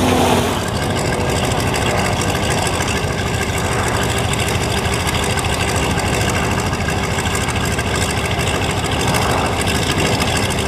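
Antonov An-2 biplane's nine-cylinder Shvetsov ASh-62IR radial engine running steadily on the ground, propeller turning, heard close up.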